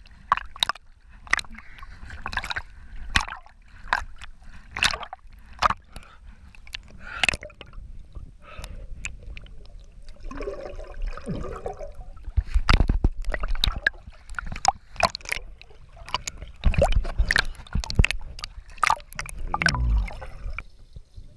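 Lake water splashing and gurgling around a handheld GoPro as a swimmer dips it in and out of the surface, with many sharp splashes. Heavier, muffled rumbling and bubbling comes from the camera underwater about halfway through and again near the end.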